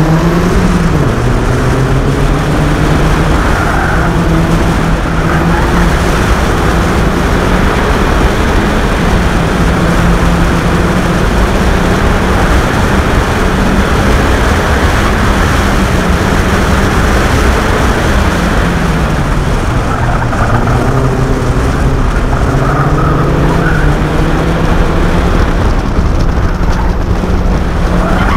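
Toyota MR2's engine working hard through an autocross run, its revs climbing and dropping with each gear change and corner, including a deep lift and pull back up about twenty seconds in. Wind rushes past the open cockpit throughout.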